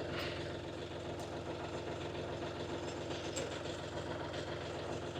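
25 hp UHI 254 compact tractor's diesel engine idling steadily.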